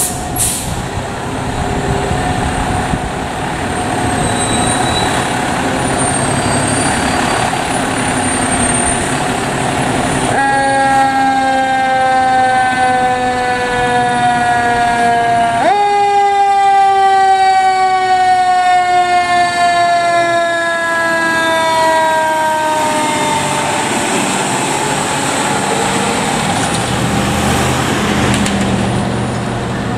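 Fire apparatus responding, with its engine running. A mechanical siren winds up about ten seconds in and coasts down in pitch. Around sixteen seconds it is wound up again, then falls away slowly and fades out near twenty-three seconds.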